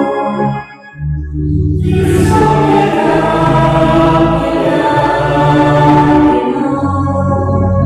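Sacred choral singing during a Mass: voices sing long held notes over a low held bass line, with a brief break about a second in.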